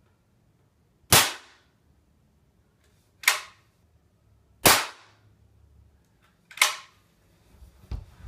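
Daisy Powerline 880 .177 pump-pneumatic air rifle being fired: short sharp cracks about one, three, four and a half and six and a half seconds in, the first and third the loudest, then a dull low thump near the end.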